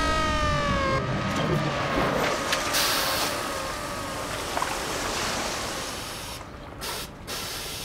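Water rushing and splashing as a man hanging upside down is hauled out of a pool, water streaming off him; the rush fades away near the end. A set of slowly falling tones sweeps through the first few seconds.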